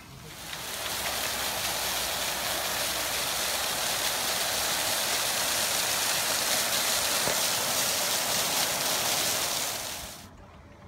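Small ground-level fountain jets spurting up between pebbles, making a steady rushing splash of water. It fades in at the start and fades out near the end.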